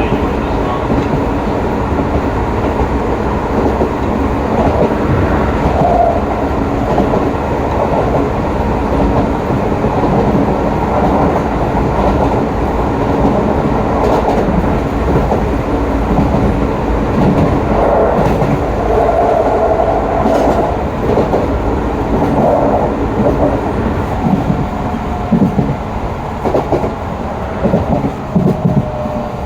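Running sound of Hokuso Railway train 7301, a GTO-VVVF electric multiple unit, heard from inside the car as it rolls along at speed. Steady rumble of wheels on rail, with wheel clacks over rail joints that grow sharper and more distinct near the end.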